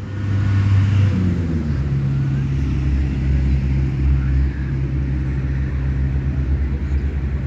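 A motor engine running steadily, its pitch dropping about a second in and then holding.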